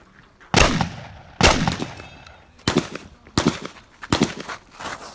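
12-gauge shotgun fired in a quick series of about six shots, spaced roughly half a second to a second apart, each with a short echoing tail; the first two shots are the loudest.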